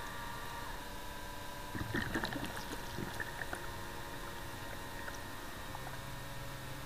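Steady electric whine and hum of an RC model submarine's drive, heard underwater from on board. About two seconds in, a short burst of bubbling and gurgling clicks as bubbles stream past the hull, and a lower hum joins near the end.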